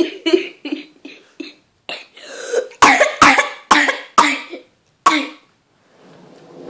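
A girl laughing, then a string of about five short, sharp coughs, the last about five seconds in.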